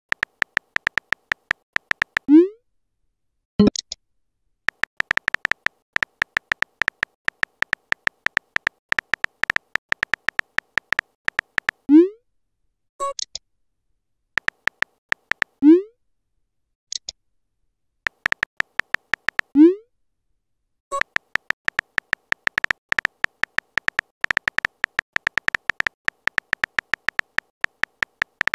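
Rapid phone-keyboard tap clicks from a texting app as messages are typed out, in runs of several seconds. Four short rising pops as messages are sent, each followed by a brief high chirp.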